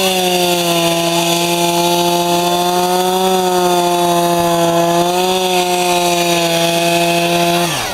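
Two-stroke chainsaw held at high revs while cutting through pond ice, its pitch wavering slightly as the chain bites. Near the end the throttle is released and the pitch falls away.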